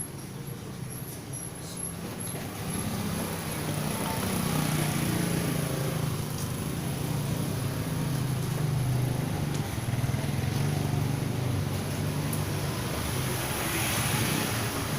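A vehicle engine running steadily with a low hum, growing louder over the first few seconds and then holding.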